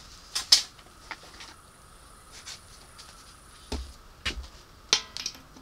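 Tools and small engine parts being handled and set down: two sharp clicks just after the start, two duller thuds a little past the middle, and a quick run of clicks near the end.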